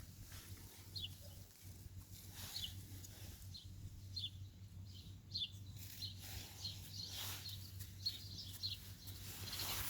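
A bird chirping: short, high, falling chirps about once a second, over a faint steady low hum.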